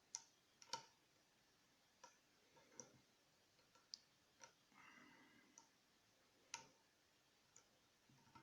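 Faint, irregular metallic clicks and ticks of a dimple pick and tension tool in an AGB Euro-cylinder dimple lock, with a short scrape about five seconds in, as the stuck pick is worked in the keyway.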